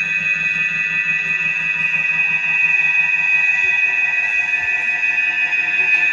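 A sustained, high-pitched electronic ringing tone: several steady pitches held together over a low, quickly pulsing hum, with no break or change.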